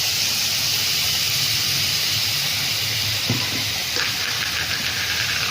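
Onions, tomatoes and curry leaves sizzling steadily as they fry in hot oil in a kadai.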